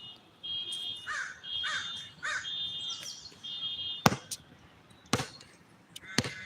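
A bird calls over and over in short harsh notes, about one a second, through the first four seconds. Then come several sharp knocks, some in close pairs, typical of a basketball bouncing on the court.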